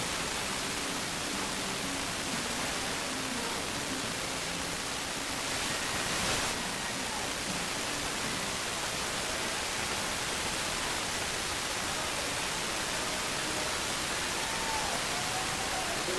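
Television static: a steady, even hiss with a brief louder swell about six seconds in.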